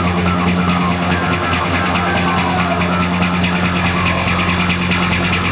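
Goa trance music with a fast, steady beat over held bass notes.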